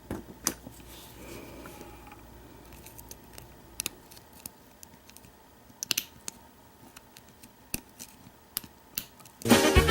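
Scattered light metallic clicks and scrapes of a lock pick and tension wrench working the pins of an American Lock padlock. Swing music starts loudly near the end.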